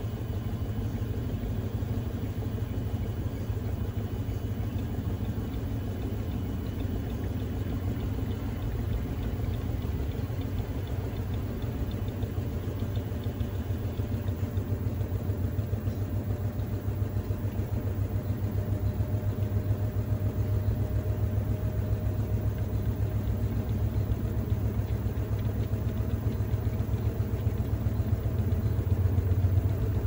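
Panasonic NA-FD10X1HRM top-load inverter washing machine in its spin cycle, the tub spinning steadily with a low rumble. From about halfway through, a faint whine slowly rises in pitch as the spin grows a little louder.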